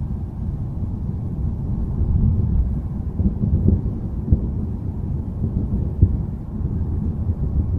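Low rolling thunder rumble that swells through the middle, with a few sharp crackles about halfway and two-thirds of the way in.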